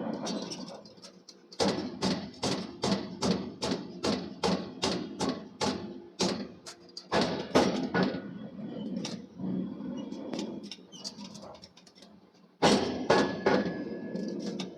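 Forging hammer striking hot steel in quick, even runs of blows, about three a second, in three bursts with short pauses between.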